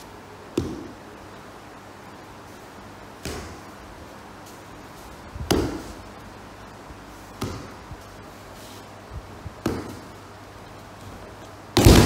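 Thuds and slaps of a body and hands hitting the dojo mats as an aikido partner is taken down and pinned. There are about six of them, unevenly spaced, and the loudest comes near the end.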